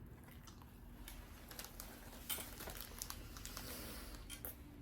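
Faint, scattered small clicks and light rustles of handling over a low background.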